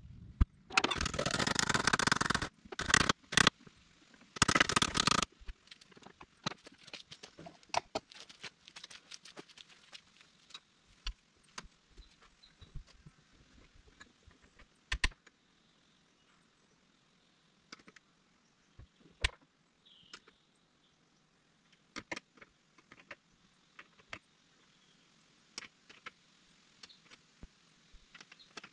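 Hand work inside a tractor cab: a few loud bursts of noise in the first five seconds, then scattered light clicks and knocks from handling parts of the cab and its door.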